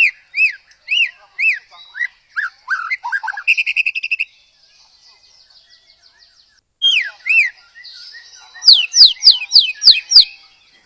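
White-rumped shama singing: a run of short arched whistles and falling notes with a quick trill about four seconds in, then after a pause of a couple of seconds a burst of about seven loud, sharp downward-sweeping notes near the end.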